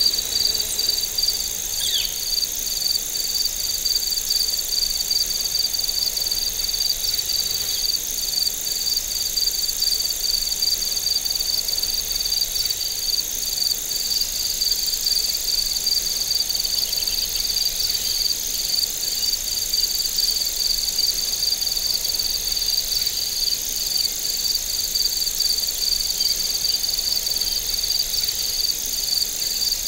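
Autumn chorus of crickets: one chirping in an even pulse, about three chirps a second, over a steady high-pitched trill from others.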